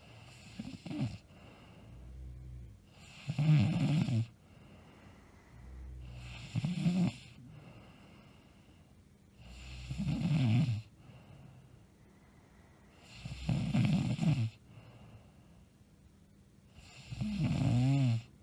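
A woman snoring loudly in her sleep: six snores about three and a half seconds apart, each about a second long with a bending pitch, with quieter breathing between them.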